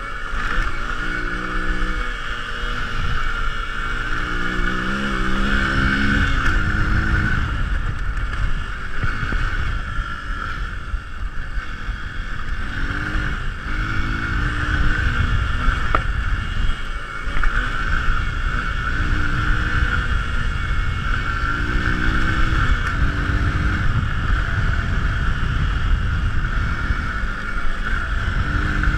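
Single-cylinder motorcycle engine being ridden hard off-road, revving up and easing off again and again as the rider works the throttle and gears. A heavy rush of wind and road noise lies under it.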